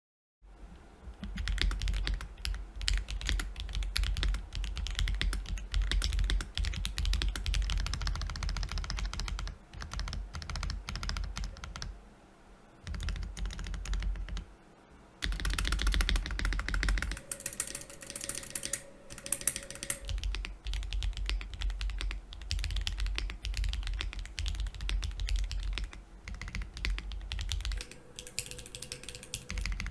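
Custom GAS67 mechanical keyboard being typed on in fast, continuous runs: Akko Cream Yellow V3 linear switches lubed with Krytox 205g0, under shine-through keycaps, giving rapid keystroke clacks. The typing pauses briefly twice, a little before the halfway point.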